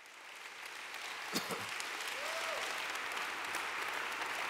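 Large audience applauding, fading in over the first second and then holding at a steady level.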